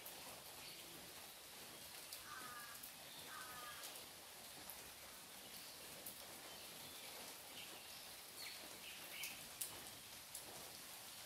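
Faint light rain, a steady hiss with scattered drops pattering, in a sun shower. A bird calls twice about two seconds in, with a few more short chirps near the end.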